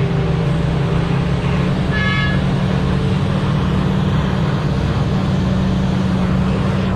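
Heavy diesel engine running steadily at a constant pitch, heard from inside a mining machine's cab, with a short high beep about two seconds in.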